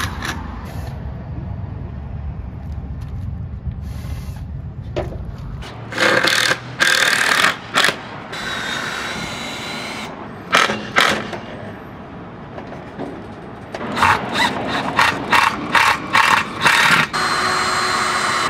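Cordless drill running in short bursts as it fastens mural panels to a building wall: a few runs of about a second, then a quick string of short pulses and a longer run near the end.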